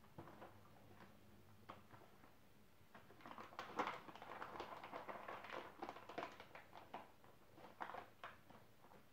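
Faint crinkling and crackling of a paper treat bag being rummaged in, a dense run of small crackles through the middle, after a few separate light clicks.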